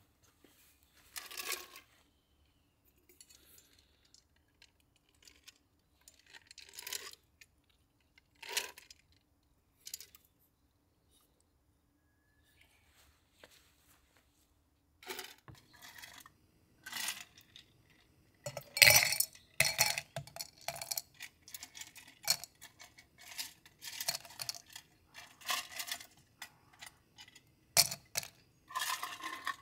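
Scattered knocks and clicks of metal gear being handled, then from about halfway a dense run of clinking and rattling, ending with liquid poured from a Brooklyn Outdoor Company Cool Jug stainless steel jug over ice cubes in a glass server.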